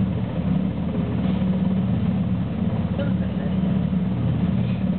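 Twin-engine NH90 helicopter running on deck with its rotor turning: a steady low engine and rotor drone with a fast, even rotor beat.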